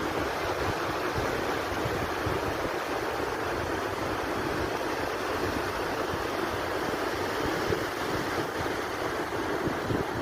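Sea surf washing steadily, an even rush of water with no single wave break standing out.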